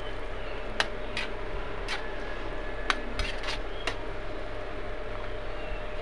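Metal spatula clinking and scraping against an aluminium wok while stirring jackfruit stew in broth, several sharp clinks in the first four seconds over a steady hum.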